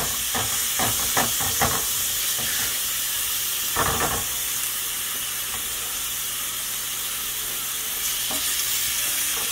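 Thin-sliced Steak-umm steak sizzling steadily as it fries in a pan with buttery spread. A spatula scrapes and taps the pan several times in the first two seconds, and once more, louder, about four seconds in.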